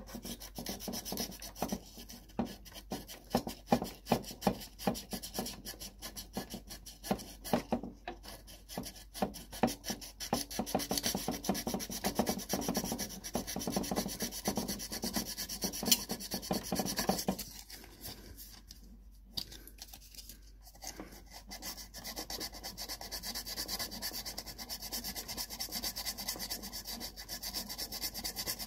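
Hand sanding of hard plastic with 320-grit wet-and-dry sandpaper: quick back-and-forth rubbing strokes that smooth down a raised spot in the surface. The strokes stop briefly about two-thirds of the way through, then resume lighter and more even.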